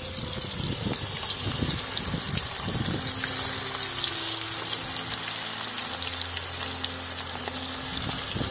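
Chicken pakodi deep-frying in hot oil: a steady sizzle with many fine crackles.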